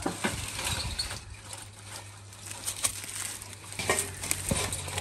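Sheets of corrugated metal roofing being lifted and shifted by hand, scraping and rattling, with a couple of louder metallic knocks near the end.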